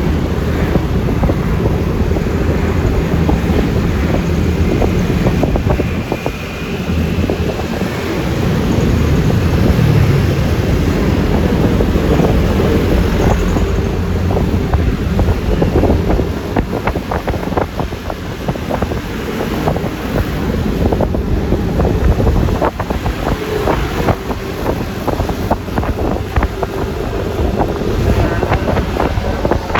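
Wind buffeting the microphone while riding a Yamaha Lexi LX 155 scooter, over the steady drone of its single-cylinder engine and road noise. The loudness dips briefly about a quarter of the way in, then rises again.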